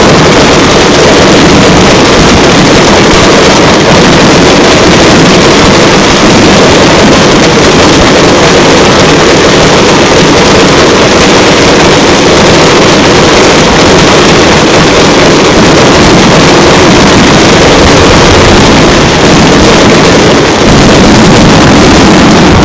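Rapid fireworks barrage, with aerial shells and ground bursts going off so close together that they blend into one steady, very loud wash of noise that overloads the recording.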